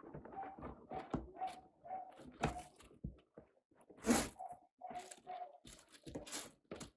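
Packaging being handled and opened: irregular rustling, crinkling and tearing with small knocks, one louder crinkle about four seconds in.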